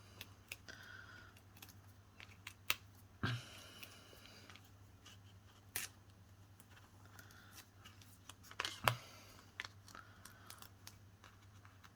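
Paper and cardstock being handled at a craft desk: scattered light taps and clicks with a few soft rustles as card layers are put together.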